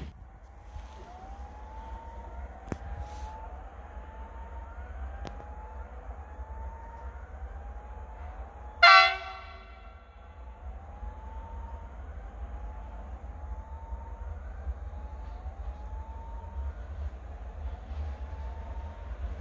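Railway level-crossing warning signal sounding a rising electronic chirp about once a second over a low rumble. About nine seconds in, a short, loud horn blast cuts across it.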